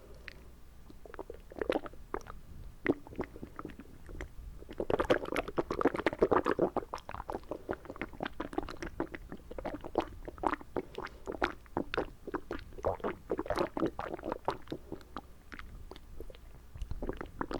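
Mouth sounds with water held in the mouth: a string of wet clicks, smacks and squelches, with a busier sloshing stretch about five seconds in and another around thirteen seconds.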